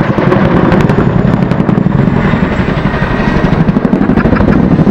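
Boeing CH-47 Chinook's tandem rotors beating in a fast, even rhythm of blade slap, over the steady running of its engines. The slap comes from the blades cutting through the same pocket of disturbed air.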